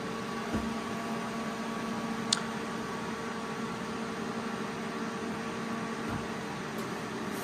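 Welding machine powered up and running, its cooling fan humming steadily. A single light click comes about two seconds in.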